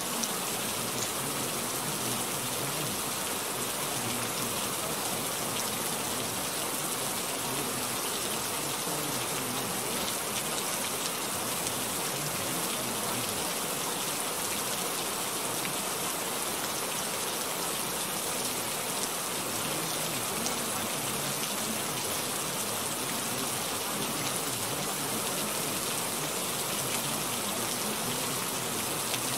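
Steady, even hiss like heavy rain, the sound bed of a subliminal audio track.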